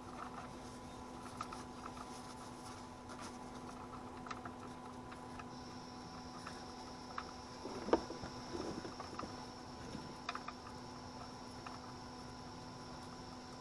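Light, scattered clicks and taps of the oil drain plug being threaded back in by hand under the Jeep, with one louder knock about eight seconds in, over a faint steady hum. A thin, high steady tone comes in about five and a half seconds in.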